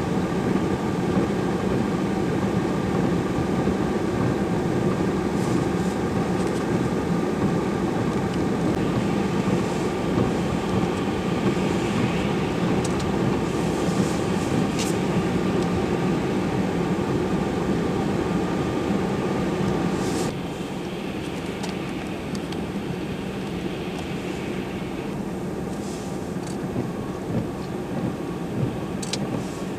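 Steady mechanical rumble and hum of a heavy vehicle's running engine, with faint scattered clicks. The level drops suddenly about two-thirds of the way through, and the same rumble carries on more quietly.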